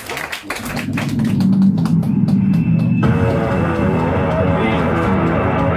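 An idol pop-rock song starting over a live-house sound system. A low intro swells from about half a second in while the audience's clapping dies away, and the full arrangement comes in about three seconds in.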